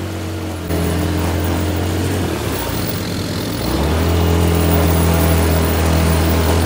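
A 150cc automatic ATV engine running steadily under throttle, with a low droning note that steps up louder about a second in and again halfway through.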